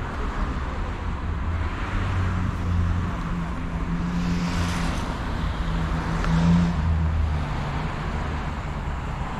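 Street traffic: a motor vehicle passes close by with its engine running, swelling and then fading, loudest about six and a half seconds in, over a steady low traffic rumble.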